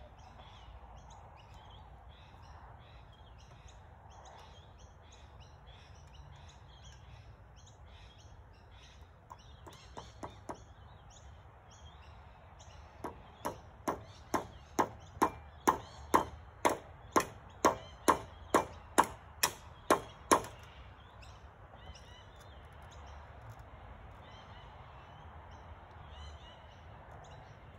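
Hammer blows on a nail into a treated-pine roof beam: a few light taps, then a steady run of about seventeen strikes, two or three a second, growing louder before they stop.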